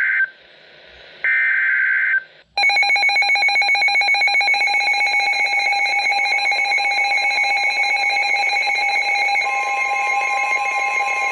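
Emergency Alert System alert. It opens with the end of one harsh data burst and then a second whole burst: the screeching header tones that encode the alert. About two and a half seconds in, the pulsing, ringing attention tone starts and runs on steadily, and a further tone joins it near the end.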